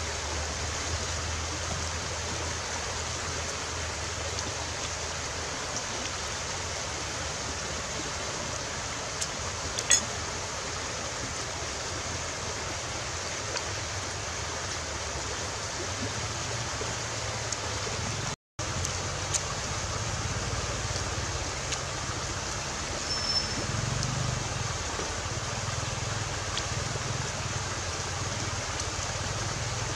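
Shallow rocky river running: a steady rush of water, with a single sharp click about a third of the way in and a split-second dropout about two-thirds through.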